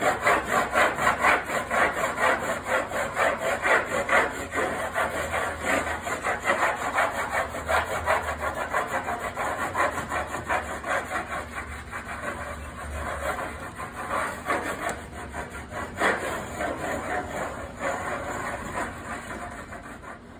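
A stick of chalk rubbed on its side over a wall of fresh chalkboard paint, in quick back-and-forth scraping strokes, about three a second. This is the seasoning coat that preps the new chalkboard surface before first use. The strokes ease off a little in the second half and stop at the end.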